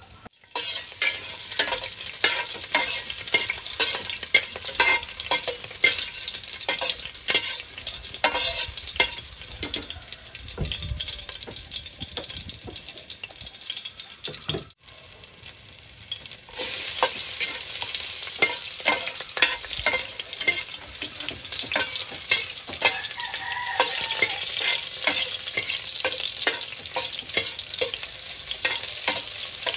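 Garlic sizzling and crackling in hot oil in a stainless steel pot, with many small pops. After a short drop about halfway, the sizzle comes back louder and denser, and near the end onions are frying with the garlic while a metal spoon stirs them.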